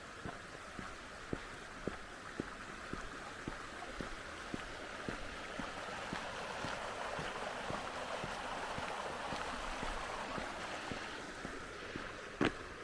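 A mountain stream rushing, growing louder in the middle and easing off again, with footsteps on a forest path at about two steps a second and one sharper knock near the end.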